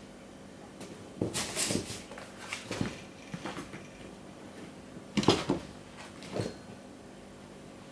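Burmese kittens scrabbling inside and against a school backpack: bursts of rustling, scratching and small knocks come in several quick clusters, the loudest about five seconds in.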